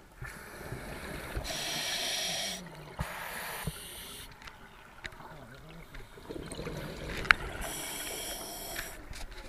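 Scuba diver breathing through a Scubapro regulator underwater: a long hissing inhalation near the start and another near the end, with exhaled bubbles burbling in between.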